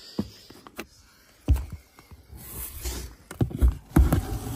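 Cardboard-wrapped fireworks batteries being shifted and lifted out of a cardboard shipping carton: dull knocks and scraping of cardboard on cardboard, with heavier thumps about a second and a half in and again near the end.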